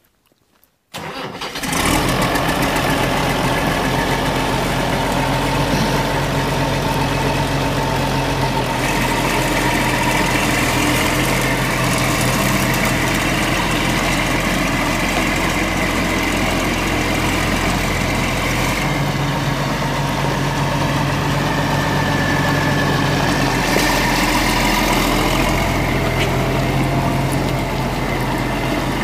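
Hesston 1880 tractor's six-cylinder diesel engine cranking briefly about a second in, catching and then idling steadily.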